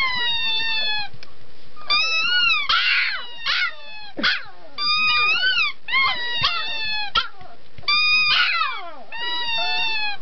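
A puppy howling: a series of high-pitched, wavering howls, each about a second long, gliding up and down in pitch, with short pauses between.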